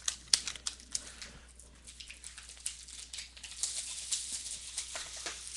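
Light clicks and rustles as a trading-card box is opened, then the plastic wrapper of a sealed card pack crinkling in the hands, the crinkling thicker over the last two seconds.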